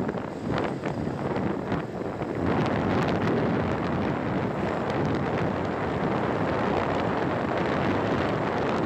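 Wind rushing and buffeting over a phone microphone on a scooter moving at about 40 km/h. It is gusty and uneven at first, then steadier and a little louder from about two and a half seconds in.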